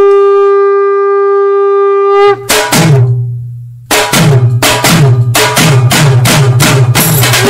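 Edited-in outro music: a single long, held horn-like note that stops about two seconds in, followed by a drum beat with deep, falling bass hits, which pauses briefly and then runs on as a steady rhythm.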